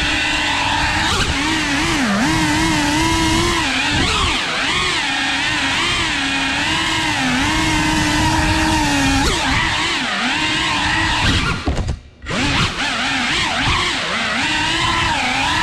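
A 3.5-inch cinewhoop FPV drone's motors and propellers whining, the pitch rising and falling with the throttle. About twelve seconds in the throttle is cut almost to nothing for a moment, then the whine picks up again.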